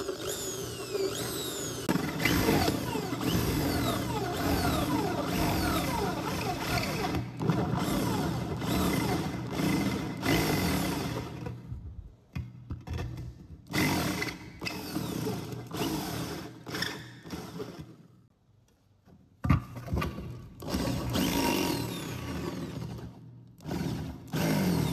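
Power drill with a stepped cone bit boring holes through the thin steel side of a paint tin. The bit grates and squeals on the metal, with repeated falling squeals, and the drilling stops briefly a few times between cuts.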